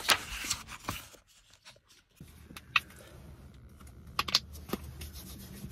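Paper pages rustling under a hand. After a short pause comes a low steady hum, with a few sharp clicks and taps from small objects being handled.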